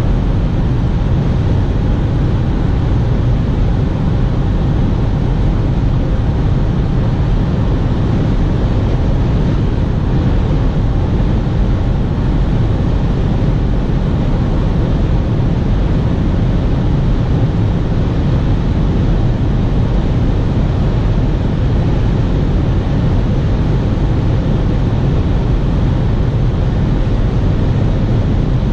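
Steady in-cabin road noise of a 2019 Ford S-MAX cruising on a motorway: an even low rumble of tyres, engine and wind that stays the same throughout.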